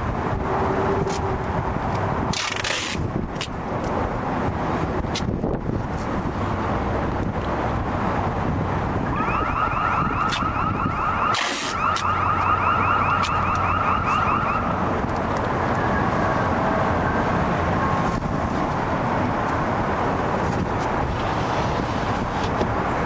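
Wind buffeting the microphone while duct tape is pulled off the roll and torn, in short rasps about two and a half seconds in and again about eleven seconds in. In the middle, a high warbling tone sounds steadily for about five seconds.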